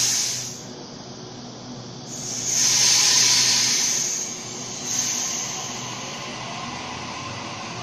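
Sydney Trains Waratah double-deck electric train pulling out of a station, with three bursts of loud hissing over its steady running noise, the longest and loudest a little over two seconds in. A faint whine begins to rise near the end as the train picks up speed.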